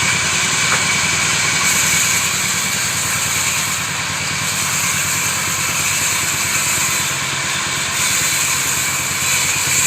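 Woodworking machine running steadily, a continuous mechanical drone with a high whine over a low rumble.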